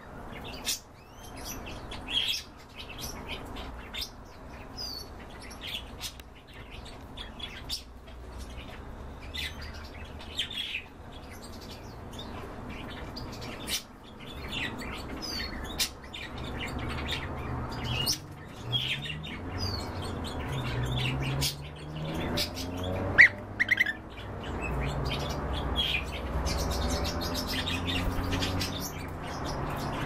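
Pet birds chirping in a room, with many short high calls and scattered clicks. A low wavering hum comes in about halfway through, and there is one sharp louder call or knock near the middle of the second half.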